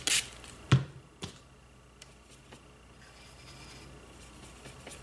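A short hiss from a hand-pump spray bottle misting water onto a watercolour palette at the very start, followed by a sharp knock and a lighter click under a second in. Then only faint handling sounds.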